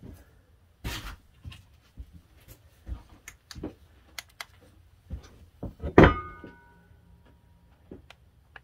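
Cast-iron andiron being handled on a wooden workbench: scattered light knocks and clicks, and about six seconds in a louder metallic clank that rings briefly.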